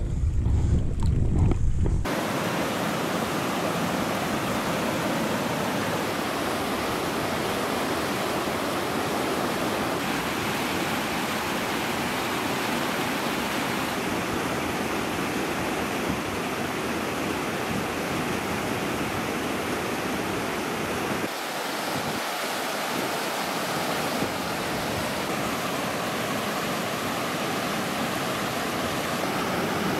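A fast mountain creek rushing over rocks in whitewater rapids, a steady, even rush of water. It is preceded by about two seconds of low rumble, like wind on the microphone.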